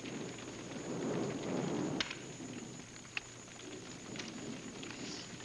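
Playing cards being dealt and handled on a table: a low rustle with a few light, sharp slaps as cards land.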